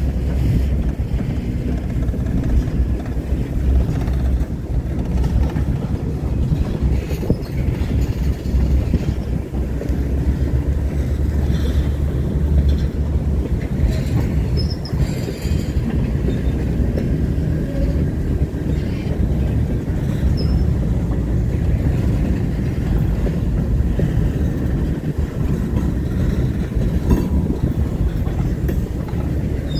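Freight cars rolling past: a steady low rumble of steel wheels on rail, with scattered clicks from the wheels and a couple of brief high-pitched wheel squeals, about halfway through and again a few seconds later.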